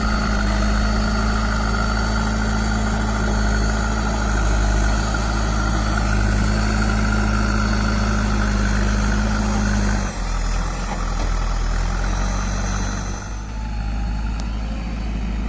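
JCB 3DX backhoe loader's diesel engine running steadily under load with a higher whine over it. About ten seconds in, the revs drop, the engine note falls and the whine stops.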